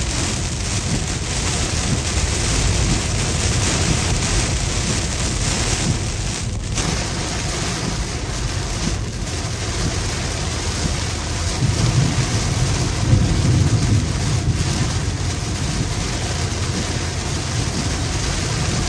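Heavy rain pouring onto a car in a thunderstorm downpour, heard from inside the cabin as a dense, steady rush of noise. A low rumble swells about twelve seconds in.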